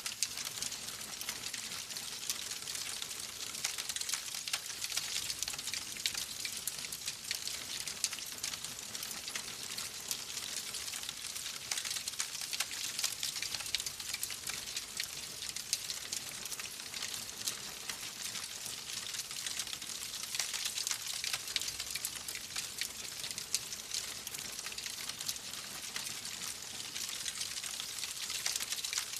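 Fireplace fire crackling steadily: a constant hiss dense with small, sharp pops.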